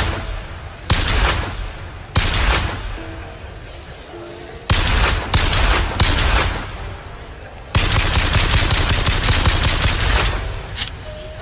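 Mauser C96 pistol firing, each shot with a ringing tail: two single shots about a second apart, then three quicker shots, then a fully automatic burst lasting about two and a half seconds.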